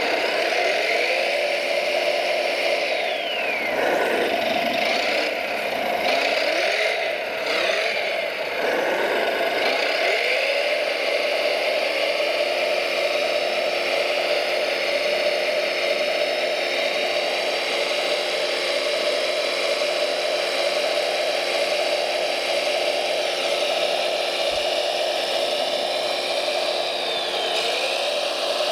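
Radio-controlled model truck's electric drive whining, its pitch rising and falling several times as it speeds up and slows, then holding steady for a long stretch before dropping again near the end.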